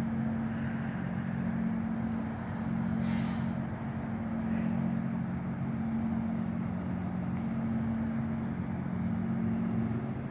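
An engine running steadily with a constant low hum, with a brief hiss about three seconds in.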